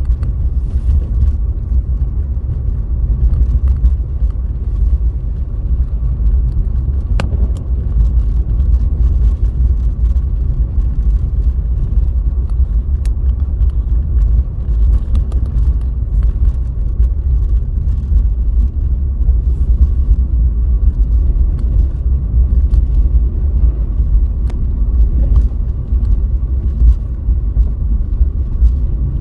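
Car driving: a steady low rumble of road and engine noise, with a faint steady high whine and scattered light ticks.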